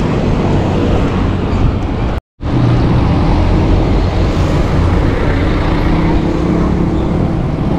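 Road traffic and wind rush heard from a moving bicycle: a steady, loud roar, heaviest in the low end, with passing vehicle engines in it. It drops out completely for a moment about two seconds in.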